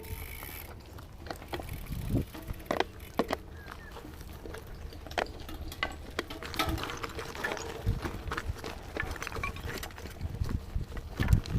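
Gravel bike with 38 mm tyres riding over a rough gravel track: irregular knocks and rattles from the bike over the bumps, over a steady low rumble.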